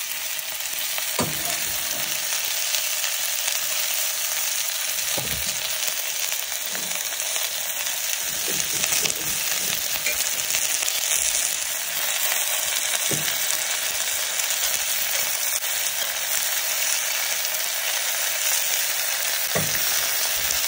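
Onions and moringa leaves sizzling in hot oil in a steel pot, a steady frying hiss. A steel ladle knocks against the pot a handful of times as the leaves are stirred in.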